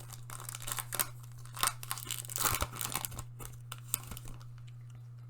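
Foil booster pack wrapper being torn open and crinkled, a dense crackling rip that dies down after about three and a half seconds.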